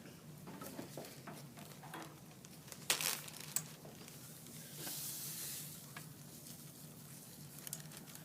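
Spice containers being handled and emptied into a pot of chili: scattered clicks and knocks, one sharp knock about three seconds in, and a rustling hiss for about a second around the five-second mark, over a steady low hum.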